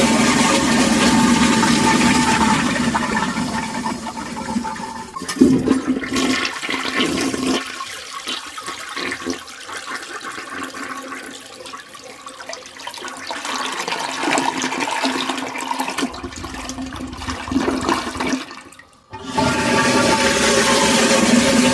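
Toilet flushing: loud rushing water that dies down after about five seconds, with a sharp knock, into quieter gurgling and trickling as the bowl drains. Near the end the sound cuts out briefly and a fresh flush starts abruptly with loud rushing water.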